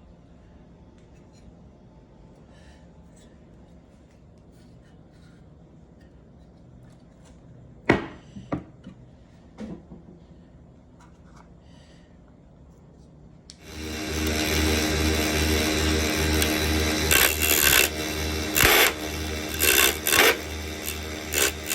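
A few handling clicks, then a little over halfway through a mini wood lathe's small electric motor switches on and runs steadily with a hum. Short, louder rasping bursts come on top of it near the end.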